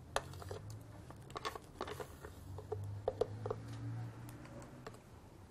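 Faint scattered taps and scrapes of a metal spoon against a plastic blender jar and plastic mixing bowl as thick banana batter is poured and scraped out, over a low steady hum.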